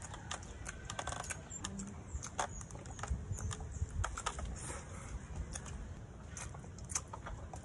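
Close-up eating sounds: open-mouthed chewing and lip-smacking, a run of irregular wet clicks, as rice and fish are eaten by hand.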